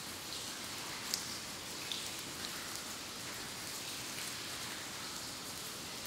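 Water dripping in a cave: scattered single drops, the sharpest about a second in, over a steady hiss.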